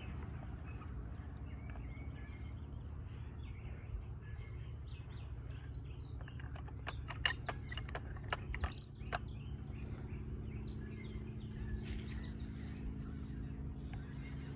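Outdoor background with a steady low hum and faint bird chirps. About seven to nine seconds in comes a run of sharp clicks from handling the laser receiver's rod clamp.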